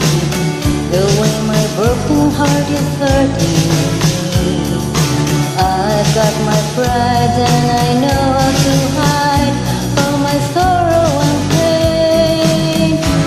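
Karaoke backing music in a pop-rock style: a steady drum beat with a pitched lead melody that bends between notes.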